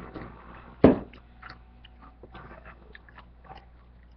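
A boy chewing food close to the microphone, with small scattered clicks and mouth noises. About a second in there is one loud thump on the table.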